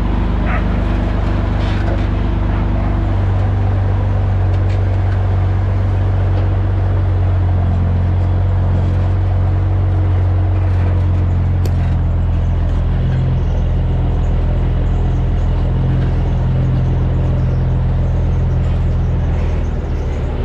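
Volvo N12 truck's diesel engine and loud dual exhaust running under way, a deep steady drone; the engine note shifts about three seconds in and eases off near the end.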